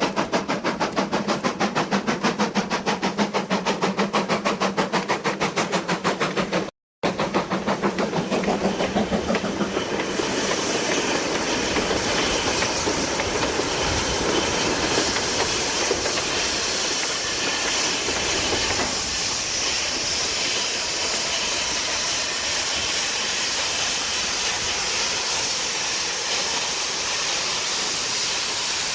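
GER N7 steam tank locomotive working under steam, its exhaust beating fast and evenly at about five beats a second. There is a brief dropout about seven seconds in. From about ten seconds in, the beats give way to a steady hiss.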